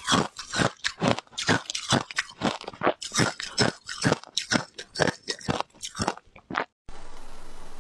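Ice being bitten and chewed close to the microphone: a fast run of loud, crisp crunches, about three a second. Near the end the crunching cuts off suddenly and a steady hiss remains.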